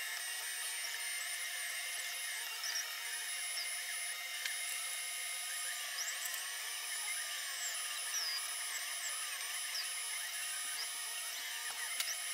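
Diode laser engraver running: the gantry's stepper motors whine as the head traces curves, the pitch sliding up and down with the head's speed, over the steady hum of the laser head's cooling fan. A sharp tick near the end.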